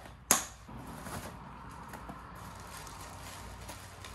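Bike parts and packaging being handled: a sharp knock about a third of a second in, then steady rustling.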